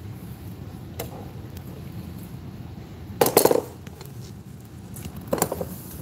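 Metal tools and parts clinking and clattering as they are handled, in two short clusters about three and five seconds in, over a steady low hum.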